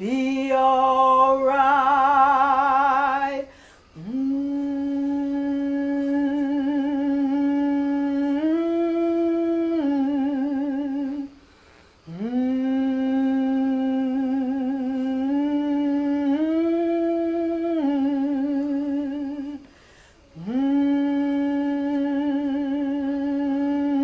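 Voices humming a slow spiritual melody in three long phrases. Each phrase holds a steady note, steps up for a moment and comes back down, with brief breaths between phrases. It opens with a sung held note with a wide vibrato, the loudest part.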